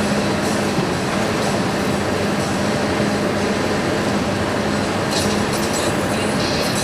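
Scania R500 truck's V8 engine running with a steady drone under road noise, heard from inside the cab as the truck drives. About five seconds in, a higher-pitched rattling joins.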